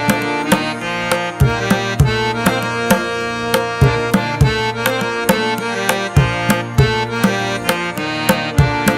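Background instrumental music with a steady percussion beat, struck a few times a second under held melodic notes.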